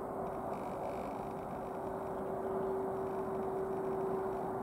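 Airbus A330-300 jet engines running at low taxi power: a steady rumbling hiss with a steady whine held on one note, growing a little louder about halfway through.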